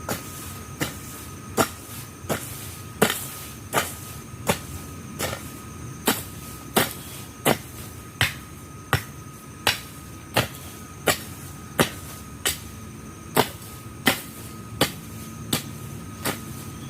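A hand tool chopping into weeds and ground with steady, rhythmic strokes, about three strikes every two seconds.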